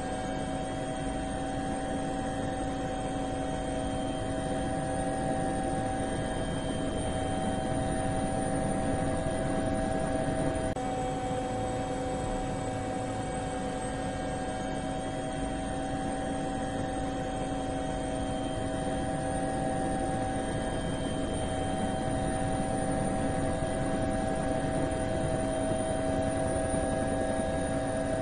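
DJI Phantom quadcopter's motors and propellers humming steadily, picked up by the camera on board, with several steady tones that shift slightly in pitch about ten seconds in.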